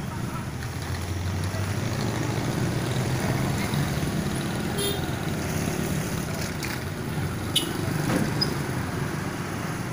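Road traffic: motorcycle and car engines running as they cross, over a steady low engine hum, with a few sharp clicks about halfway through and again later.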